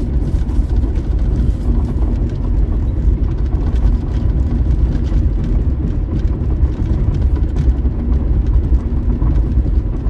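Car driving along a highway, heard from inside the cabin: a steady low rumble of the car running on the road.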